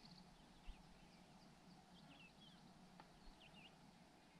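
Near silence: quiet open-air ambience with scattered faint, high bird chirps and a high trill that stops just after the start.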